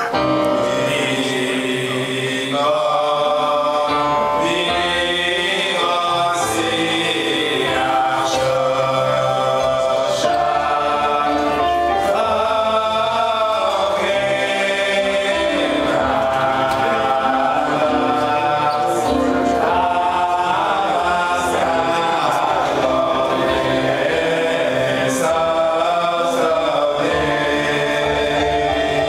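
Men singing a Jewish wedding melody, a lead voice amplified through a microphone over the hall's sound system.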